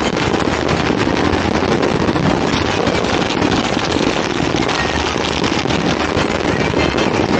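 Dense, continuous crackle of firecrackers and fireworks going off, with countless small pops running together without a break.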